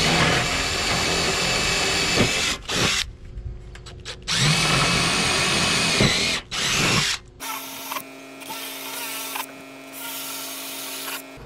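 Cordless drill boring holes through a corrugated metal roofing sheet: two runs of a few seconds each with a short pause between, the motor whining as the bit cuts through the steel.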